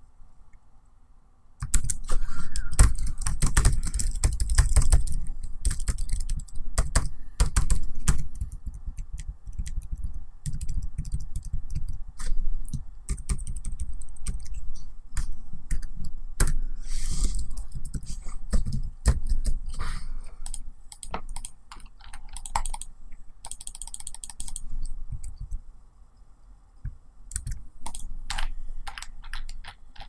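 Typing on a laptop keyboard: a dense run of rapid key clicks starting about two seconds in, with a short break near the end before the typing resumes.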